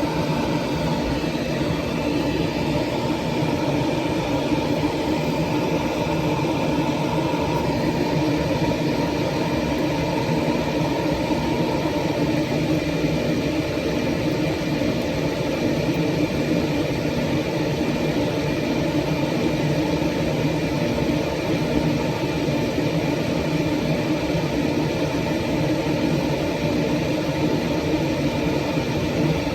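Steady machine hum, like a motor or fan running, with several held tones and no change in loudness; one higher tone fades out about twelve seconds in.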